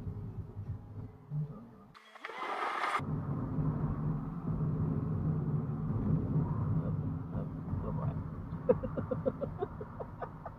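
Steady low rumble of a car's engine and road noise heard from inside the cabin, broken about two seconds in by a one-second burst of hiss. Near the end there is a run of quick faint ticks.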